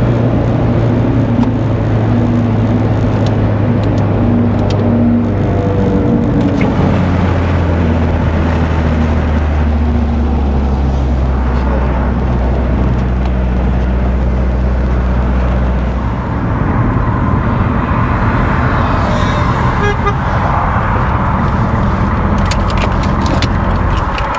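Big-turbo Mitsubishi Lancer Evolution X's turbocharged four-cylinder engine droning steadily in the cabin at cruising speed, with road and wind noise. The engine note drops to a lower pitch about six seconds in, as after an upshift, and holds steady. After about sixteen seconds the low drone gives way to tyre and wind hiss.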